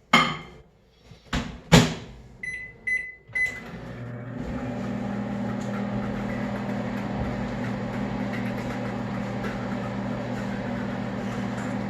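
Microwave oven being started: the door shuts with a couple of clacks, three short keypad beeps, then the oven runs with a steady low hum while it reheats the scrambled eggs.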